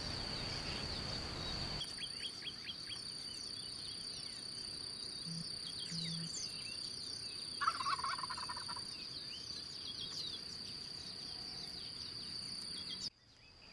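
Wild turkey gobbler gobbling once, a rapid rattling call about a second long a little past the middle, over a steady high-pitched hum and scattered small chirps.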